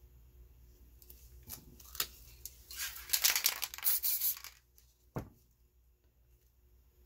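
A gloved hand rubbing and peeling at the surface of a spray-paint picture on newspaper: a crackly, tearing rustle for a second or two in the middle, with a few sharp taps before and after.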